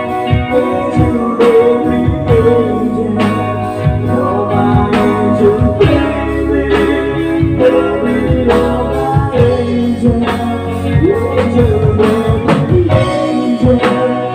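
Live band playing a slow pop song: electric guitar over a drum kit and keyboard, with a steady drumbeat throughout.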